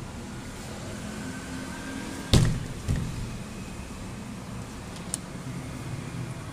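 A door knocking against its frame as a cat paws and pushes at its edge: one sharp bang about two seconds in, a smaller knock half a second later, and a light click near the end, over a steady low hum.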